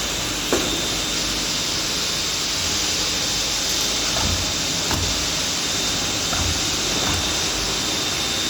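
CNC wire-bending machine running: a steady hiss with a thin high whine, and several dull thumps as it works.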